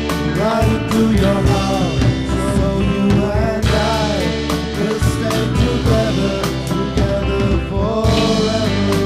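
Rock song playing: electric guitars over a steady drum beat, with a lead line that slides up and down in pitch.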